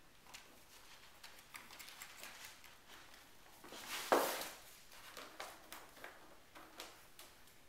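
Six-and-a-half-week-old RagaMuffin kittens at play, their paws pattering and tapping on a hardwood floor with small scattered knocks. There is a louder bump about four seconds in.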